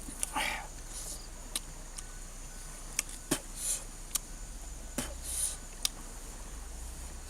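Scattered sharp clicks and taps with a few short rustling swishes, such as hands handling things, over a steady low hum and a faint high steady tone.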